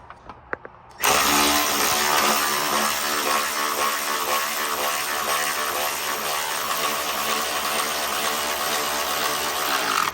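Milwaukee M12 cordless impact running continuously for about nine seconds, driving in a subframe mounting bolt. It starts about a second in, after a few small clicks, and cuts off abruptly at the end.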